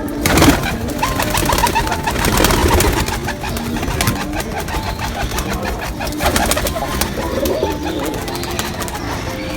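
Pigeons cooing in repeated low calls, with many short clicks and rustles throughout.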